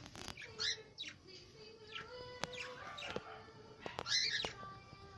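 Cockatiels chirping in a string of short high calls, the busiest flurry about four seconds in. A few sharp clicks or taps come in between, one right at the start.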